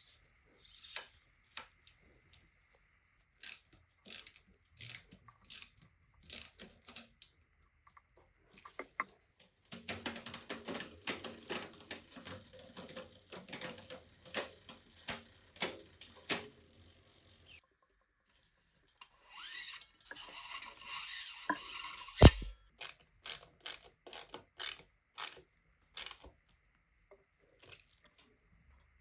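Bicycle parts being handled and worked on: scattered metal clicks, then several seconds of fast ratcheting clicks, and a single heavy thump later on, followed by a few more clicks.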